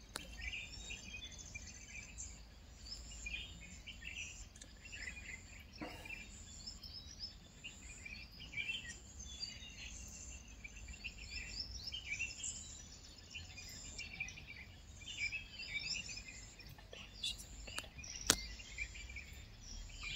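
Forest birds chirping and calling, many short overlapping calls, over a low steady rumble. A sharp click comes about six seconds in, and a louder one near the end.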